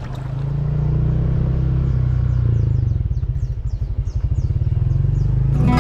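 A motor engine running with a steady low hum that pulses for a couple of seconds midway. Acoustic guitar music starts near the end.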